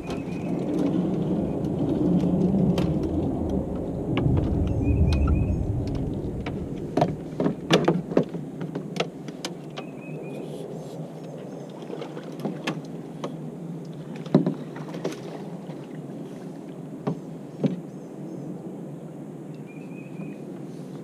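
Paddling and handling noise in a canoe along brush: a heavy low rumble for the first several seconds, then scattered sharp knocks as the aluminum-shafted paddle and hands bump the canoe's gunwale and hull among the branches.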